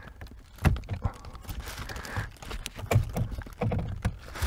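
A heater core is being worked out of its plastic heater housing under the dashboard. There are irregular light knocks, clicks and scraping of plastic parts as it catches at a tight spot.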